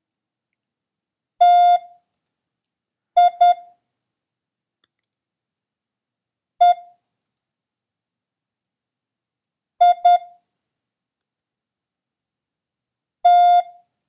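Morse code practice tones: a single mid-pitched beep keyed on and off in letters sent slowly, with long gaps between them. One dah, then two dits, one dit, two dits and a final dah, spelling T, I, E, I, T.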